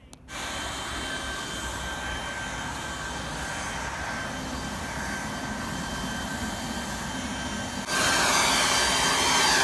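Leaf blower running steadily: a rush of air with a high, steady whine. It gets louder about eight seconds in, as leaves are blown across the ground.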